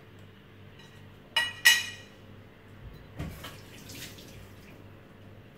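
Two short ringing metallic clinks about a second and a half in as a handheld metal grater is set down on a plate, then a kitchen tap runs briefly into a steel sink.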